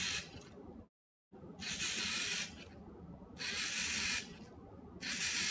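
LEGO Mindstorms NXT servo motors whirring as the robot drives in runs of about a second, stopping and starting several times. The motors cut out when a hand comes close to the ultrasonic sensor and run again at 50% power when it moves away.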